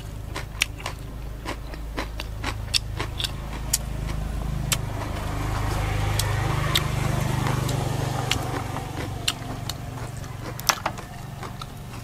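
Sharp, scattered clicks and crunches of close-miked eating: chewing, mouth sounds and handling of raw vegetables. Under them a vehicle engine's low hum passes, swelling to its loudest around the middle and fading again.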